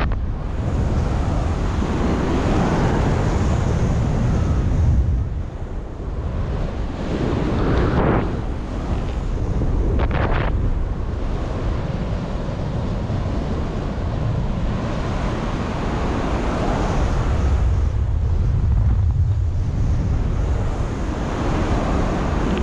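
Wind buffeting the microphone: a loud, steady rushing noise, heaviest in the low end, that swells and eases a few times.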